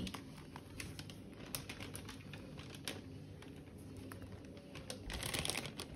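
Faint handling noise: scattered light clicks, then a short rustle of a plastic zip-lock bag about five seconds in.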